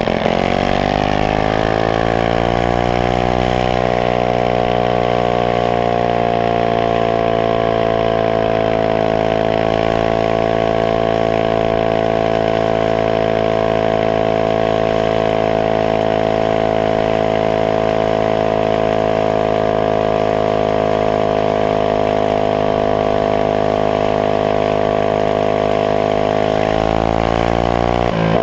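Honda GX160 single-cylinder four-stroke engine on a minibike, heard from on board: it climbs in pitch over the first few seconds as the bike accelerates, then runs steadily at high revs at cruising speed, rising slightly again near the end.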